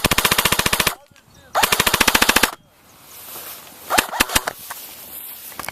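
Airsoft gun firing on full auto: two rapid bursts of about a second each, close together, roughly 20 shots a second. A few single sharp clicks follow about four seconds in.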